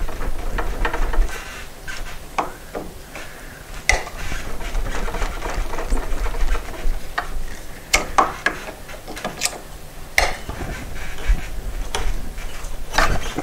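Pliers working a flat nail out of the joint between a wooden newel post and its handrail: irregular metal-on-metal clicks, scraping and wood creaking, with a few sharp snaps about four, eight, ten and thirteen seconds in.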